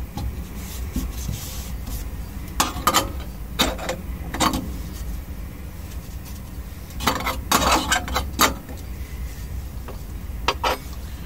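Metal clinks and scrapes as the burner cap of a Dometic gas hob is handled and set back onto its burner on the stainless-steel hob, with some rubbing of a tissue. Short clatters come in scattered groups, the busiest a little after halfway.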